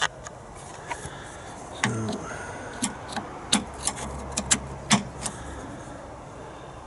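Range Rover P38 lower tailgate latch and lock being worked by hand: a run of sharp metallic clicks and clacks, about a dozen spread over a few seconds. The sticking latch is being worked loose after lubrication.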